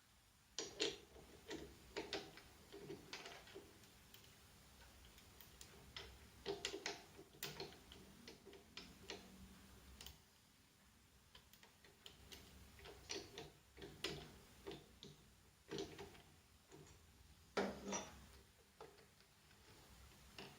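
Irregular light clicks and taps, spaced unevenly with short pauses, over a faint low hum.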